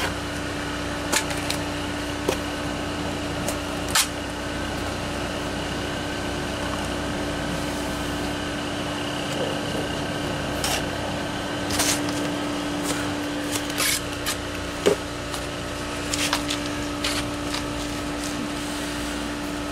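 Concrete blocks being handled and set into fresh mortar: scattered sharp knocks and scrapes of block and grit, over a steady hum.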